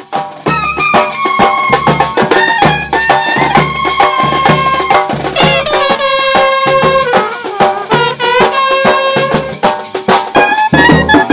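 A small folk band playing: two clarinets carrying the melody together, with a trumpet, over regular beats on double-headed barrel drums and a small side drum.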